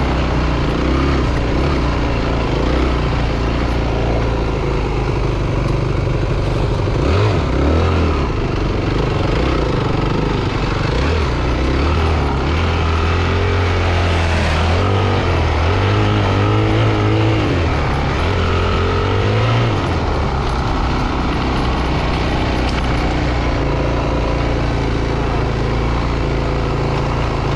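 Yamaha WR250F four-stroke single-cylinder dirt bike engine being ridden, revving up and down with the throttle, then running more evenly after about twenty seconds.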